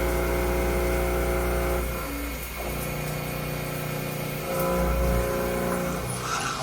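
A motor running steadily, its pitch and strength changing in steps a few times.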